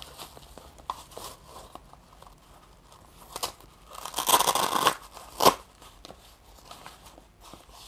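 Blood pressure monitor's fabric arm cuff being wrapped on: cloth rustling, then a hook-and-loop strap ripping for about a second about four seconds in, followed by one short rip.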